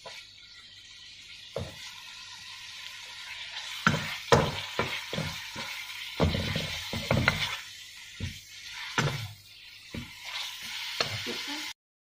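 Minced chicken sizzling in a wok while a spatula stirs and scrapes it, with irregular knocks of the spatula against the pan. The sound cuts off abruptly near the end.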